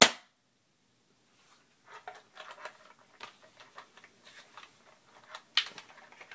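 A single sharp shot from an airsoft gun right at the start, followed from about two seconds in by scattered faint clicks and rustles.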